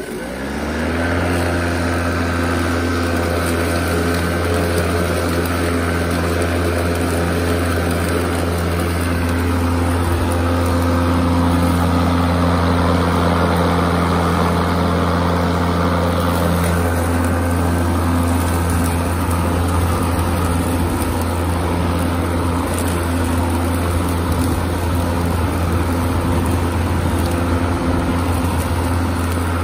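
Ryobi 40-volt 20-inch brushless cordless push mower starting up: the electric motor and blade spin up to speed within the first second, then run with a steady hum.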